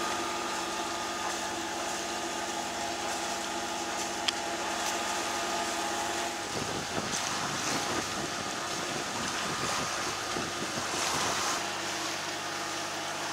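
A sailing yacht's inboard engine running steadily under way, a constant hum. For several seconds in the middle, gusty wind noise on the microphone rushes over it, then the engine hum is clear again. There is one sharp click about four seconds in.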